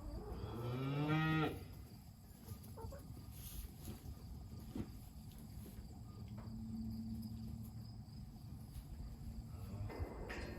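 Cows mooing: one loud moo that rises in pitch at the start, then a long, fainter, low moo from about six seconds in.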